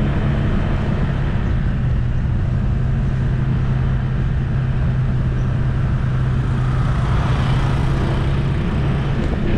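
Motor vehicle engine running steadily at an even pitch, with road noise; the hum shifts slightly near the end.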